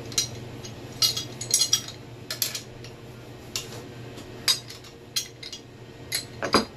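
Steel hand tools clinking and knocking against a turbocharger as a wrench is worked on its brass oil-line fitting: about ten sharp metallic clinks at uneven intervals, with a heavier knock near the end.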